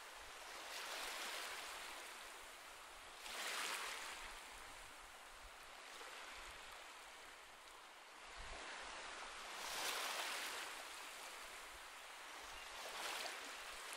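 Soft ocean waves washing onto a shore, a gentle hiss that swells and falls back several times.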